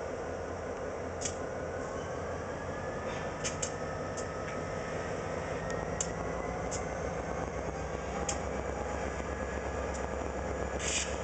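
A CSX diesel switching locomotive runs with a steady low rumble as it moves slowly with a covered hopper car. Faint drawn-out squealing tones from the rolling stock slowly shift in pitch, with scattered light clicks and a sharper clank near the end.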